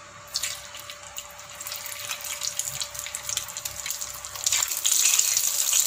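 Hot oil in a tawa sizzling and crackling as halved boiled eggs are laid into it to toast. The sizzle starts a moment in and grows louder toward the end.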